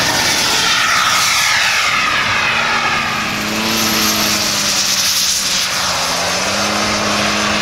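Gas-turbine engines of large-scale radio-controlled model jets running at high power as a model jet rolls along the grass and takes off: a loud, steady rushing jet noise. A lower steady drone joins about three seconds in.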